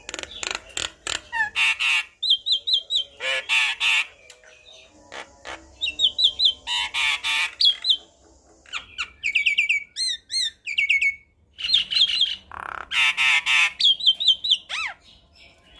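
Javan myna singing: a busy, varied song of harsh rasping bursts mixed with quick runs of short repeated whistled notes, delivered in phrases with brief gaps, and a sliding whistle near the end.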